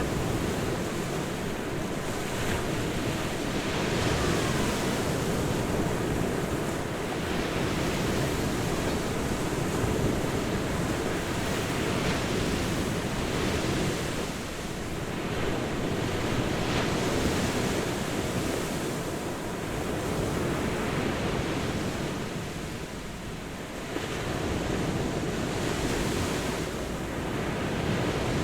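Ocean surf breaking on a beach, a continuous wash of waves that swells and eases every few seconds, with a softer lull about halfway through and again near 23 seconds in.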